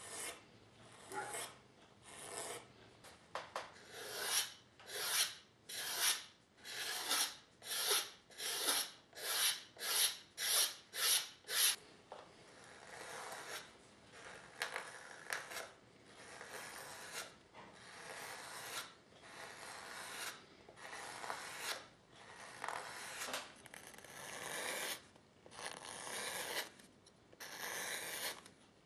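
Repeated hand scraping or rasping strokes on leather, about two a second, quickening and loudest in the first dozen seconds, then softer and more spaced out.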